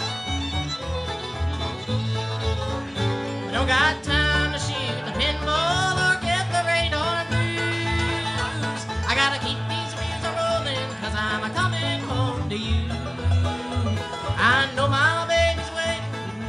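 Live bluegrass band playing an instrumental break, with five-string banjo, fiddle, acoustic guitar and upright bass keeping a steady beat, recorded from the house PA speaker.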